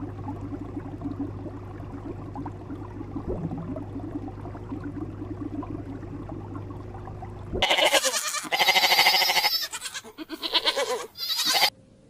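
A low steady hum, then from about eight seconds in, sheep bleating loudly several times in quick succession, stopping suddenly shortly before the end.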